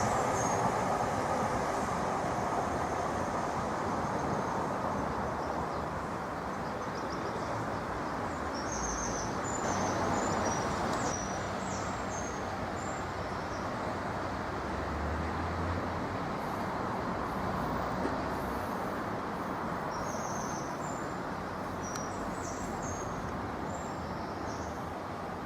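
A train's rumble fading slowly as it moves away, with small birds chirping in short bursts twice.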